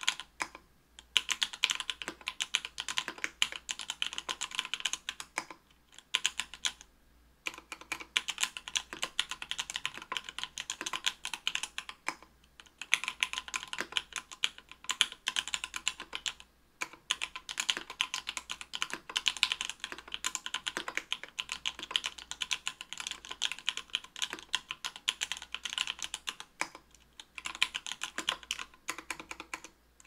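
Typing on a mechanical keyboard with stock, unlubed Everglide Sakura Pink 45 g linear switches, in an Octagon V3 with an aluminium plate and GMK keycaps. It is a quick, continuous run of keystrokes, broken by a few brief pauses.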